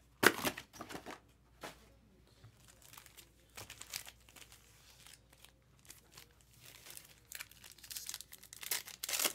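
Plastic trading-card packaging being handled, crinkling and tearing in short irregular crackles. The loudest crackles come just after the start and again near the end.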